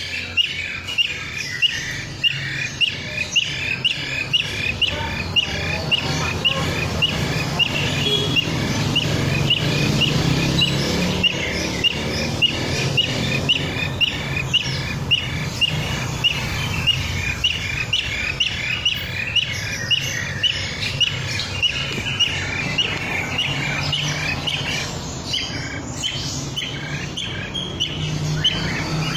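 A bee-eater calling in short, repeated chirps, about two a second, kept up steadily, over a low steady hum.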